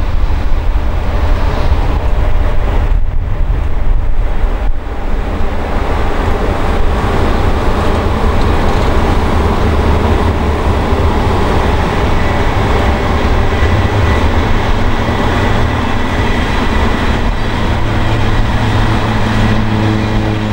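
The Ghan passenger train's carriages trundling slowly past, a steady rumble of steel wheels on the rails, with a few steady tones joining in over the last few seconds as the end of the train goes by.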